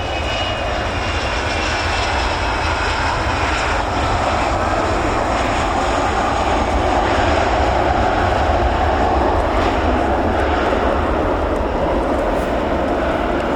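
Jet aircraft engines running loud and steady, a rushing roar that slowly grows louder.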